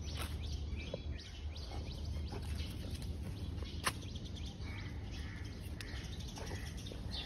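Outdoor ambience: a steady low rumble with faint bird chirps and a few light clicks.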